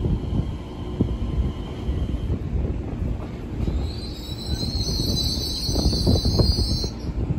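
TRA EMU3000 electric multiple unit pulling out of the station, rumbling on the rails, with a high squeal from the train for about three seconds starting about halfway through that cuts off suddenly.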